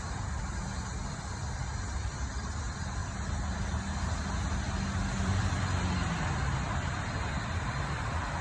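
A motor vehicle engine running steadily under a constant background hiss, a little louder around the middle and dipping slightly in pitch just after.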